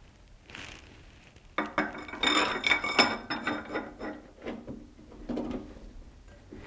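Metal clinking and ringing as a round metal bar is knocked against the mini lathe's three-jaw chuck, the loudest cluster about two seconds in, followed by lighter scattered clicks of the chuck key turning in the chuck.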